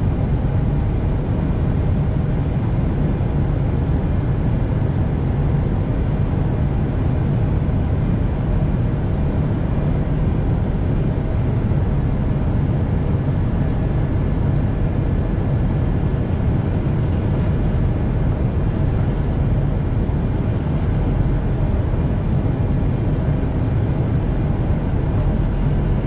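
Airbus A320 flight deck on approach: a steady low rumble of airflow and engines, with a faint steady whine above it.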